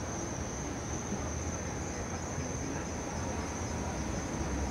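Night insects chirring in a steady high-pitched chorus over a low, steady rumble.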